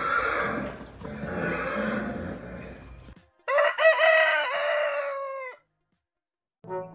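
A rooster crowing once, a single call of about two seconds that falls away at the end, about halfway through. Before it come two rough, noisy sounds lasting about three seconds.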